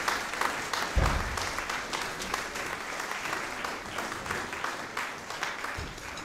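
Audience applauding, the clapping slowly dying down, with a dull low thump about a second in.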